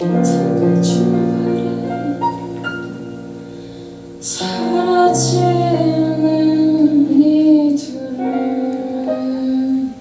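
Woman singing a slow song live, accompanying herself with chords on a Kurzweil stage keyboard in a piano sound. New chords are struck at the start and again about four and five seconds in, and the voice and chord fall away near the end.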